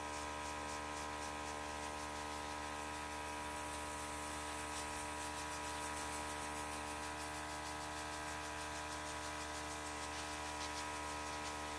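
Mini cake-decorating airbrush with its small compressor running with a steady hum, while air hisses out of the airbrush as it sprays.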